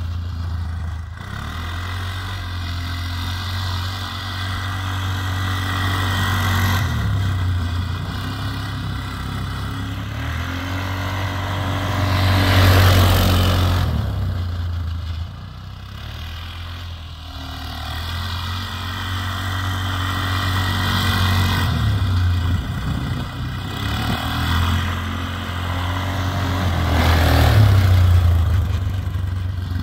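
Polaris Sportsman 500 6x6's single-cylinder engine running at speed on a dirt track, growing louder twice, about twelve seconds in and near the end, as the machine comes close to the microphone and passes, and easing off in between as it drives away.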